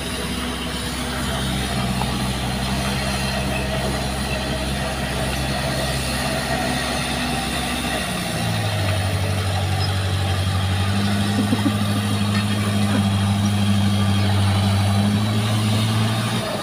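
Komatsu bulldozer's diesel engine running steadily at low revs, then revving up about halfway through and holding at a higher, louder pitch.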